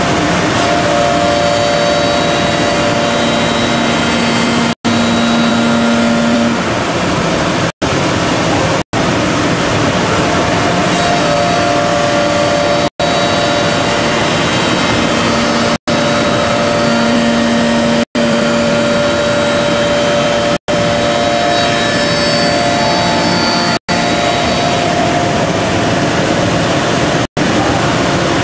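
Intorex CNC wood lathe running as its cutter shapes a square wooden blank into a curved chair leg: a loud, steady machining noise with whining tones that come and go. The sound drops out for an instant every few seconds.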